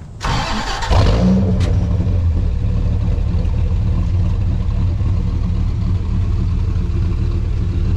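Dodge Ram SRT-10's 8.3-litre V10 heard at the tailpipes. It catches about a second in and then idles steadily with a low, even exhaust note.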